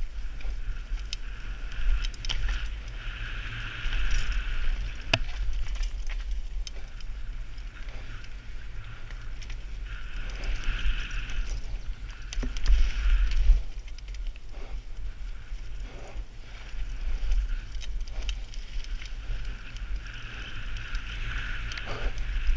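Mountain bike ridden fast over grass and dirt trail, heard from a helmet-mounted camera: constant wind rumble on the microphone, tyres on the ground and the bike rattling over bumps, with a sharp knock about five seconds in.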